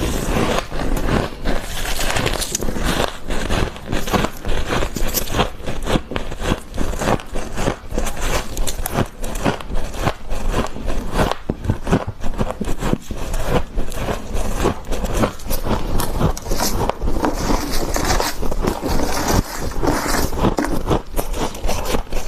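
Freezer frost crunching and scraping close to the microphone: a dense, unbroken run of crisp cracks.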